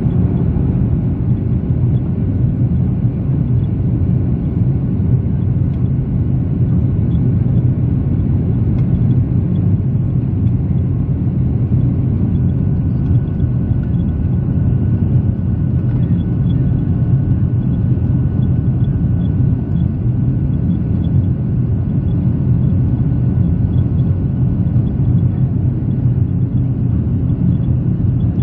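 Cabin noise of a Ryanair Boeing 737 climbing out after takeoff: its jet engines and the rushing air make a steady low rumble inside the cabin.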